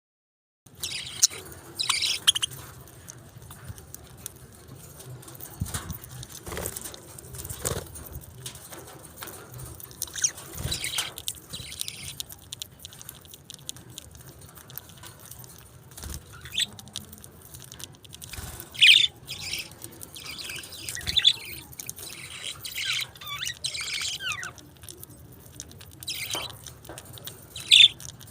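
Pet budgerigars chirping in short, scattered high bursts, with a few brief knocks in between.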